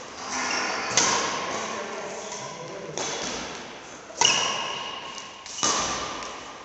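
Badminton rackets hitting a shuttlecock in a rally: four sharp hits a second or two apart, each echoing in a large hall.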